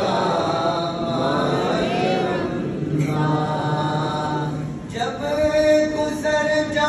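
Men's voices singing an Urdu farewell-to-Ramadan naat in unison, unaccompanied. About five seconds in, a single amplified male voice carries the line on with long held notes.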